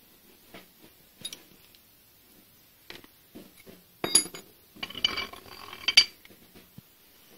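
Metal clinks and scraping as an old bench vise's handle and screw are worked loose and slid out of its front jaw: a sharp clank about four seconds in, a second of metal-on-metal scraping and rattling, then another loud clank about six seconds in.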